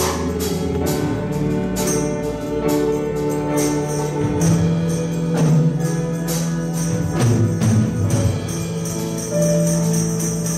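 Live church praise band playing a worship song, with sustained chords and a tambourine jingling.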